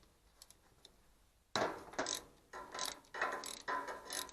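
Ratchet wrench clicking in quick back-and-forth strokes, backing out the bolts that hold the head on a starter. It starts about one and a half seconds in, after a few faint clicks.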